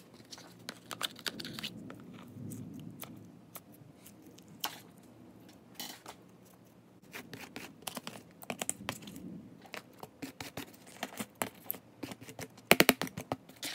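Slime being handled and added to a plastic tub: irregular sticky crackling clicks and squelches, with a louder burst of clicks near the end.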